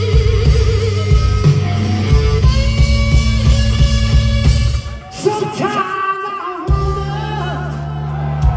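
Rock band playing, with electric guitar, bass and drums on a steady beat. About five seconds in, the bass and drums drop out briefly, leaving bending guitar lines, and the low end comes back in near the end.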